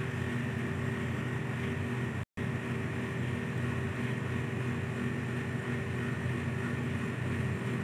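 Steady mechanical hum with a few constant tones, dropping out for an instant about two seconds in.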